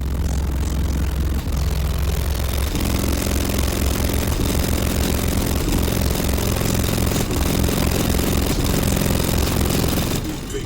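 A car engine running steadily at idle, with a deep, even note and a slight shift in its sound about three seconds in.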